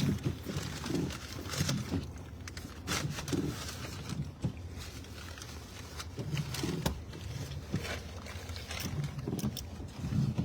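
A person chewing food close to the microphone, with irregular soft, low mouth sounds and small clicks, over the steady low hum of a car's interior.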